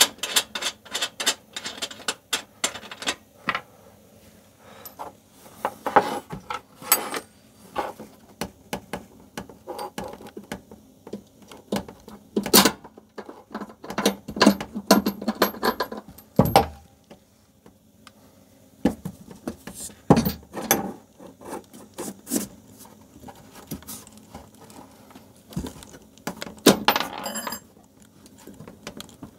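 Clinking and knocking of metal parts and hand tools as the feet of an outdoor air-conditioning unit are unscrewed and swapped for spring anti-vibration feet: many short, irregular clicks and taps, with a quick rattling run of clicks near the end.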